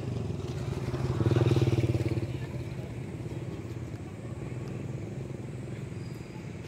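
A motor vehicle's engine running steadily, swelling louder for about a second, beginning around a second in, then settling back to a steady hum.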